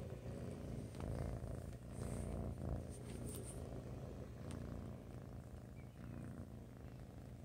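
Kitten purring close up: a steady low rumble, with a few light clicks and rubs as the kitten presses against the phone and blanket.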